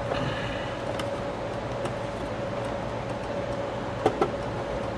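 Light clicks and two sharper knocks about four seconds in as the plastic parts of a slide projector are handled, over a steady hum.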